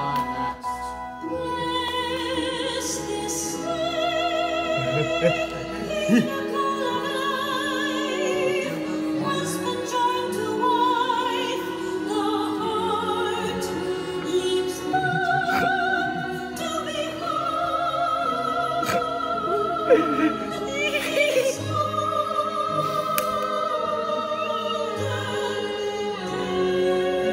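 Operatic soprano singing a slow solo line of long held notes with wide vibrato, over orchestral accompaniment.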